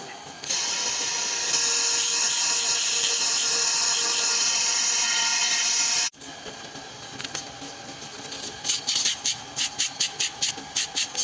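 A loud steady hissing whir that cuts off suddenly after about five and a half seconds, then a staple attacher machine cycling in a quick regular run of clicking strokes, about three a second.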